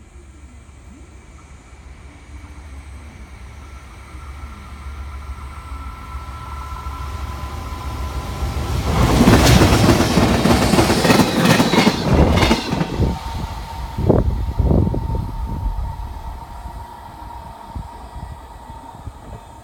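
A JR Freight EF510 electric locomotive towing a second, unpowered EF510 passes close by. The rumble builds as it approaches, becomes a loud rush of rapid wheel clacks for about three seconds, then gives a couple of last clacks and fades away.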